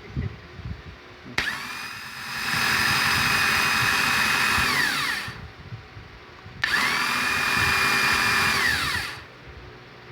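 Volkswagen Gol starter motor run twice, each time spinning up to a loud, steady high-pitched whine for three to four seconds and then winding down. It is the noise of a faulty starter, which the uploader ties to corrosion and oxidation.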